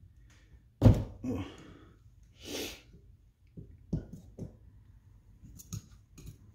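Small metallic clicks and scrapes of a pick working O-rings out of the inner grooves of a shock absorber's top cap, scattered through the second half. About a second in there is a sudden loud burst, the loudest thing here, and near the middle a short hiss.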